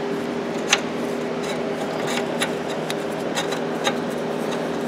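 Scattered light clicks and taps of hand tools and metal parts being handled during O2 sensor removal, about one a second, over a steady background hum.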